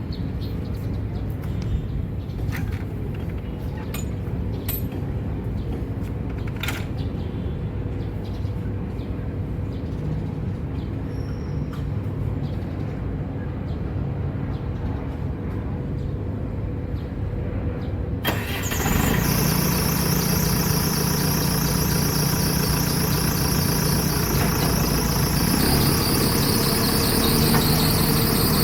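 Backhoe loader's diesel engine running steadily at low speed. About eighteen seconds in the sound suddenly gets louder, with a high hiss and whine joining the engine.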